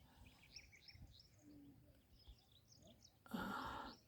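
Small birds chirping outdoors: a run of short, high, down-slurred notes repeated two or three times a second. About three seconds in, a brief, louder burst of rustling noise cuts across them.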